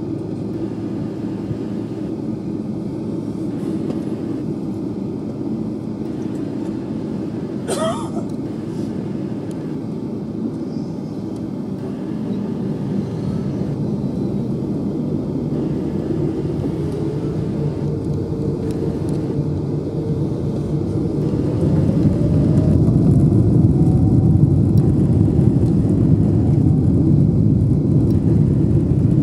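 Cabin noise inside a Boeing 777-300: a steady rumble of the engines and airframe while taxiing. From about halfway through, a whine rises slowly in pitch, and about twenty seconds in the rumble grows much louder as the engines spool up toward takeoff thrust. A brief sharp sound about eight seconds in.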